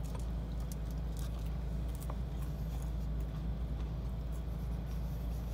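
Steady low hum inside a parked car, with faint clicks and mouth sounds of someone chewing a bite of fried pastry.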